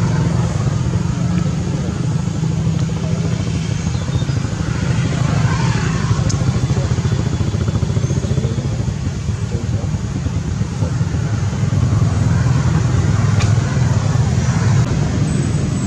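Steady low engine hum running without a break, with two short sharp clicks along the way.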